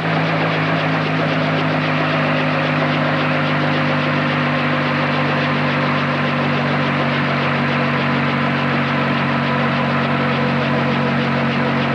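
Small bubble-canopy helicopter idling on the ground, a steady engine drone with several even tones that holds without change in pitch or loudness.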